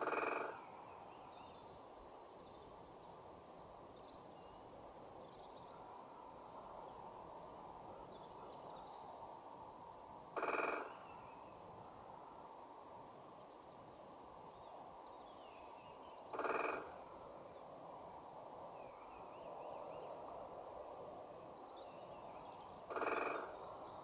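Great spotted woodpecker drumming on a tree trunk: four short rolls of rapid knocks, each about half a second, spaced several seconds apart, the first right at the start and the last near the end. Other birds call faintly over a steady background noise.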